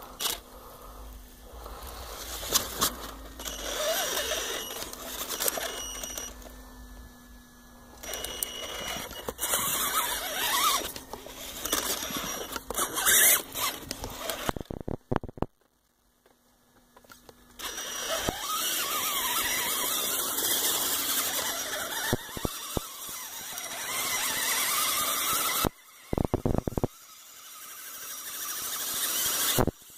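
Electric motors and gearboxes of an RC Clodbuster monster truck whining as it drives through mud, the sound rising and falling with the throttle. It stops for about a second near the middle, then runs steadily again.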